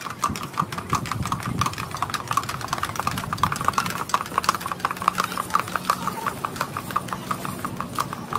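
Hooves of two draft horses clopping on asphalt as they pull a carriage past, quick even strikes several a second, with a vehicle engine running underneath.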